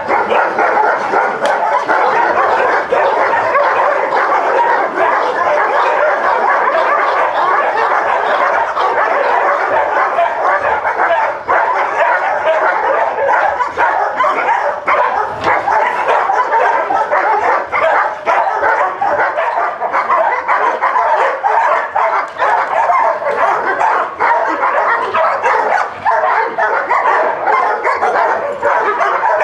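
Many dogs barking at once, a continuous overlapping din of barks with no break.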